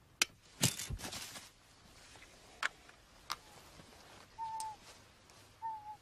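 Radio-fired bait trap springing: a sharp click, a thump and a brief rustling rush in the first second and a half, then two more sharp clicks. In the second half, a bird's short whistled call that falls slightly, twice.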